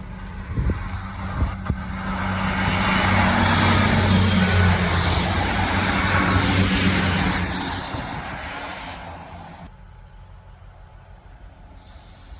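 Diesel train passing: a low engine drone and the rush of wheels and air build up, peak for a few seconds, then fade away within about ten seconds.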